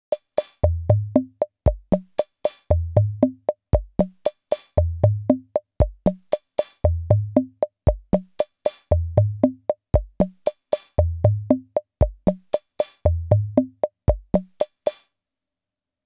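An eight-step General MIDI drum pattern played from an Arduino 8x8 gate sequencer at 232 BPM, looping about every two seconds. A short clicky hit on every step sits over kick drum thumps and two toms, the second lower than the first. The loop runs seven times, then stops about a second before the end.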